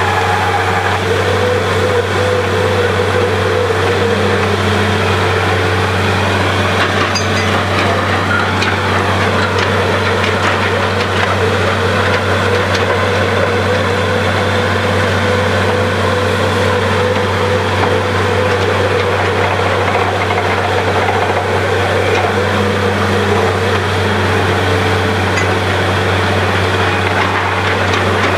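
Borewell drilling rig running steadily: a continuous loud machine drone with a deep, even hum and steady higher tones over it.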